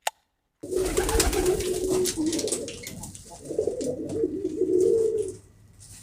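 Domestic pigeons cooing in two warbling bouts: the first starts about half a second in, and the second starts about three and a half seconds in.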